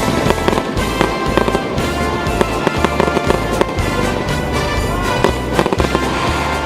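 Fireworks salute going off in a dense run of sharp bangs, with music playing under them.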